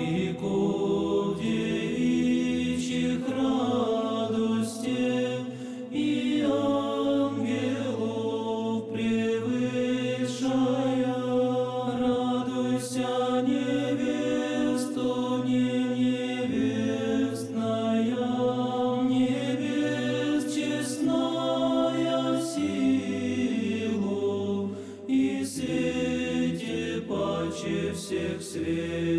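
A choir singing Orthodox church chant in slow, held chords over a low sustained bass note, the harmony shifting every few seconds.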